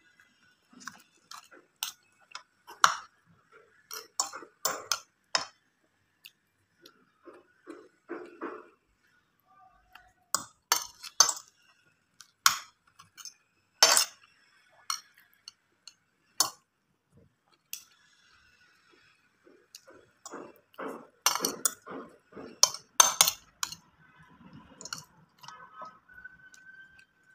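Metal spoon and fork clinking and scraping against a plate of rice, in scattered sharp clicks that come in quick clusters, with soft chewing sounds between them.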